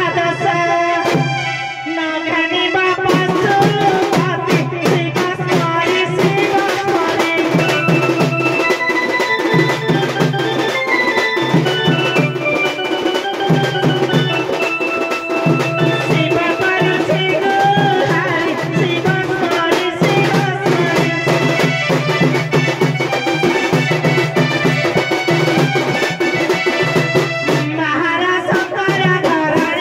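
Live folk dance music with drums beating a fast, steady rhythm under a sustained reed-like melody; the drums come in about three seconds in.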